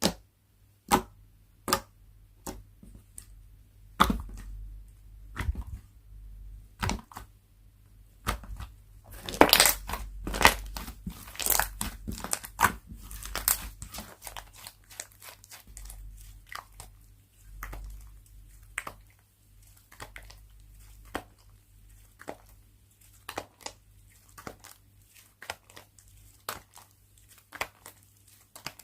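Hands squishing and stretching slime, making irregular sharp pops and clicks. The pops come thickest about nine to fourteen seconds in.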